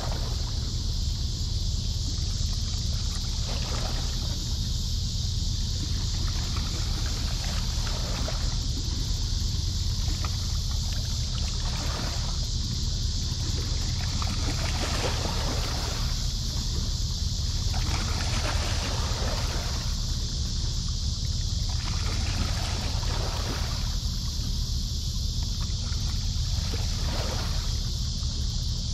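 Steady riverbank ambience: a constant low rumble under a steady high hiss, with no distinct events.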